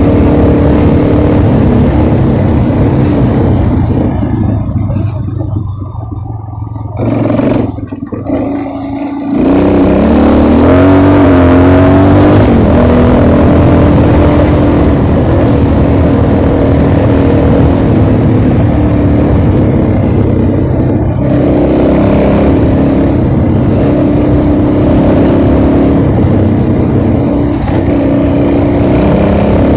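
Motorcycle engine running while riding; it eases off and goes quieter for a few seconds, then revs up with a rising pitch about ten seconds in and runs steadily on.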